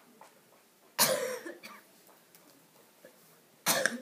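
A person coughing: two loud coughs, a longer one about a second in and a shorter one near the end.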